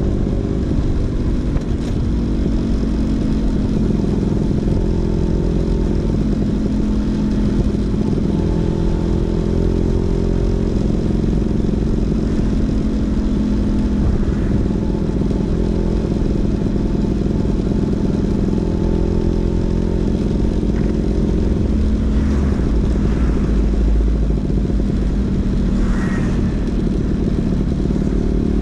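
Vespa PX 150's two-stroke single-cylinder engine running through a DRC Victory racing exhaust, its note rising and falling gently.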